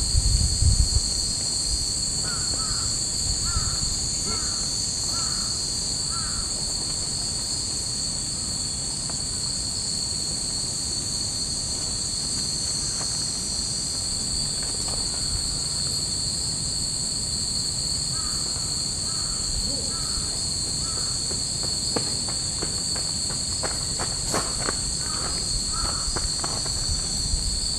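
Summer cicadas droning steadily in the trees, a dense high buzz that never lets up. A run of about five short calls comes twice over it, and a few light clicks come near the end.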